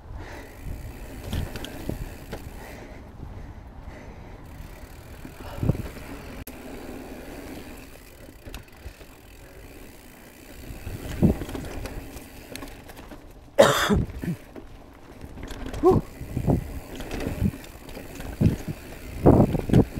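Rocky Mountain Element C50 full-suspension carbon mountain bike riding down a dirt singletrack: a steady low tyre rumble over the trail with scattered knocks and rattles from roots and bumps. A loud brief burst of noise comes about two-thirds of the way through, and several sharp thumps come near the end.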